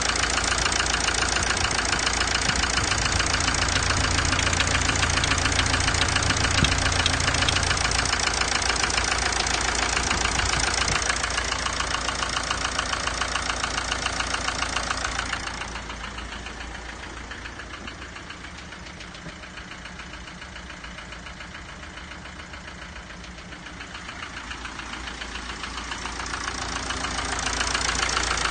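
Mercedes Sprinter OM646 four-cylinder diesel engine running with a rapid rhythmic ticking knock from the top end. The owner suspects the hydraulic lifters or camshafts of this replacement engine. The noise becomes much quieter for a stretch past the middle and comes back near the end.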